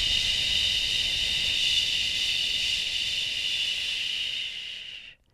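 A woman's long, steady "shhh" breathed out through the mouth: the liver healing sound of the Taoist Five Elements practice, used to purge anger and frustration. It fades away shortly before the end.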